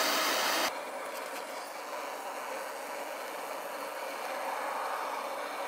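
Portable gas burner hissing steadily with its flame lit, cutting off abruptly under a second in; a much fainter steady hiss follows.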